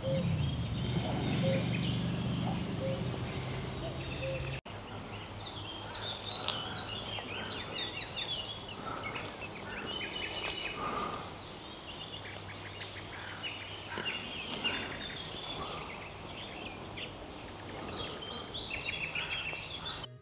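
A motorboat's engine running close by for the first few seconds, then an abrupt cut to songbirds chirping and singing over a low steady hum.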